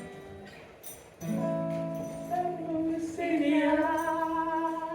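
Live song ending: a held chord comes in about a second in, and a voice sings a long final note with vibrato over it.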